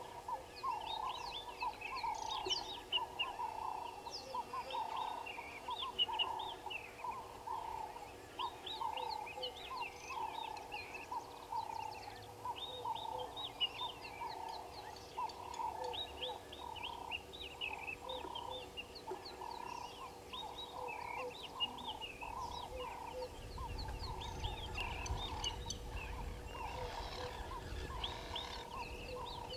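A bird chorus: many birds chirping and calling over one another without a break, with a dense run of repeated lower calls beneath the chirps. A low rumble comes in near the end.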